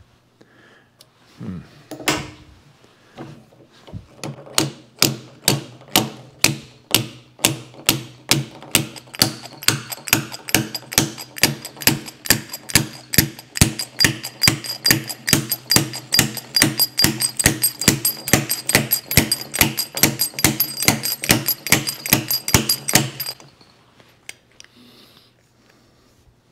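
Repeated sharp metallic clicks from a hand tool working the bolt on a stuck flashlight cap: about two a second at first, coming faster and more evenly, each with a short ring. They stop abruptly a few seconds before the end, leaving a low steady hum.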